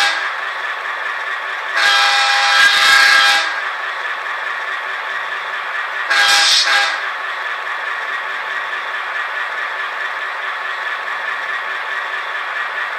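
Sound decoder in an N-scale Algoma Central FP9 model diesel locomotive playing its horn through a tiny speaker: a blast of about a second and a half starting about two seconds in, then a short blast about six seconds in, over a steady engine sound.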